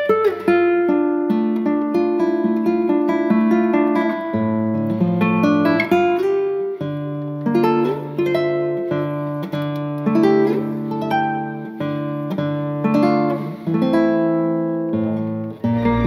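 Background music: acoustic guitar playing plucked, picked notes and chords.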